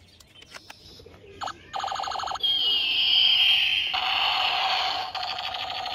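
Battery-powered plastic toy assault rifle playing its electronic firing sound effects through its small speaker. A few light plastic clicks come first as it is handled; a fast rattling starts about two seconds in, then a loud falling siren-like tone and a steady rattling buzz.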